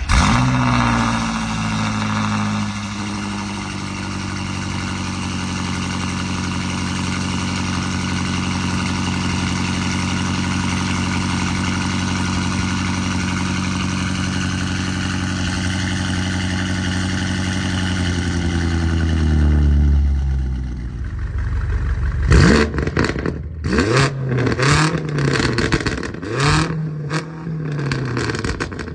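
BMW M8 Competition's twin-turbo V8 starting with a sudden loud burst through its quad exhausts, then holding a steady idle whose pitch slowly sinks. About 22 seconds in come a series of quick revs, each rising and falling in pitch.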